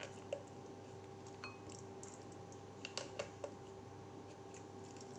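A few scattered light clicks and taps of hands and small utensils at work on a kitchen counter, over a faint steady hum.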